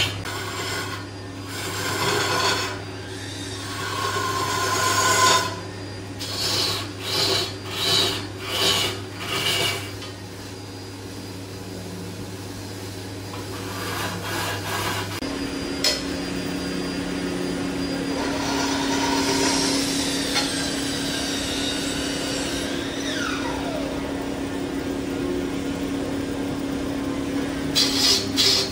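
Hand-held pad pressed against a large wooden log spinning on a wood lathe, giving a rasping rub over the lathe motor's steady hum. The rubbing swells and fades in rhythmic strokes for stretches, between steadier stretches.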